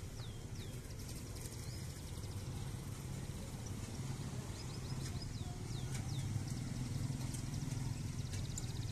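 Birds chirping in several bouts, with quick downward-sliding calls and rapid trills, over a low steady engine hum that swells toward the end as vehicles come close.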